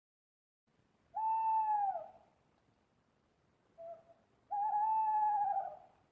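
Owl hooting: two long hoots, the first dropping in pitch at its end, with a short soft note between them before the second, longer hoot.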